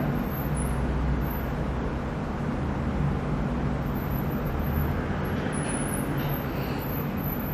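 Steady background rumble and hiss with no distinct events; the slow press of the trigger against the gauge makes no audible sound.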